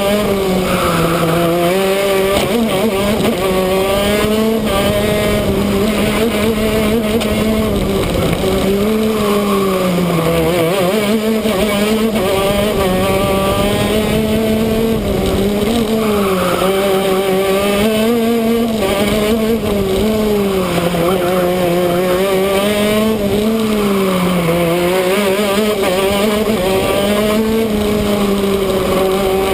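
Shifter kart's 125cc two-stroke engine running hard on track, its note climbing and dropping again and again as it accelerates and slows through the corners.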